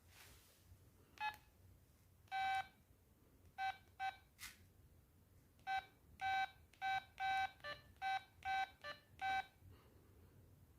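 LG MD5330 mobile phone sounding short electronic beeps through its small speaker. The run is irregular, about a dozen beeps, mostly on one pitch, with one held longer and a few notes at other pitches.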